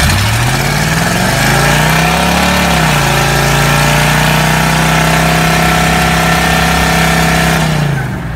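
Vehicle doing a burnout. The engine revs up hard and is held at high revs while the rear tire spins and squeals on the pavement, then the revs drop as the throttle is released near the end.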